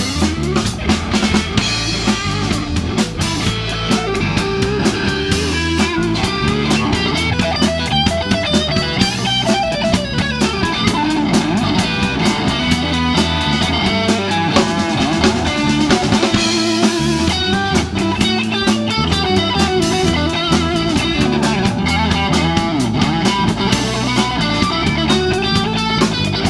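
Live electric blues band playing an instrumental passage: electric guitar taking the lead over bass and a drum kit, with no singing.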